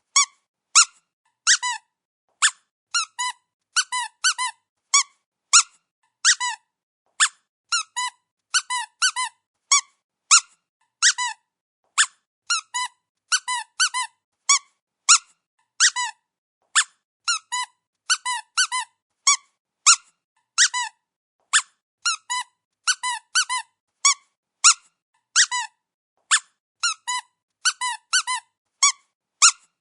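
Dog's squeaky toy being squeezed over and over. It gives short, high squeaks, singly or in quick groups of two or three, with brief pauses between.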